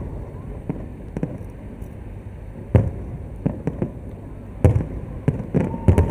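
Fireworks shells bursting: a string of about a dozen irregular bangs, the loudest a little under three seconds in, at about five seconds and at the end.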